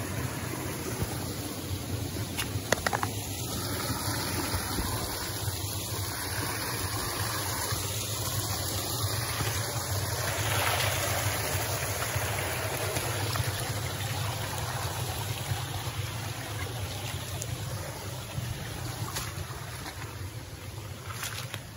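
Steady rushing of a flowing creek, an even wash of water noise that holds at one level throughout.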